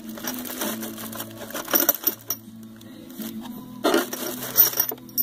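Small metal hardware clinking and rattling as a hand rummages for it, in several short bursts, the loudest near the end. Quiet background music plays underneath.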